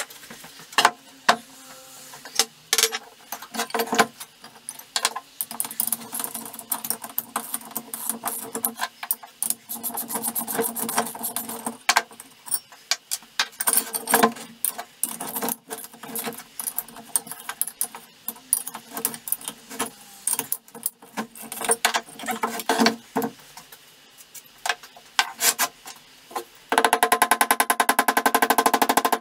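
Metal clinks and knocks of tools and parts as a cast-iron York bench vise is dismantled. Near the end comes a fast, loud run of hammer strikes on a pin punch driving out one of the vise's pins.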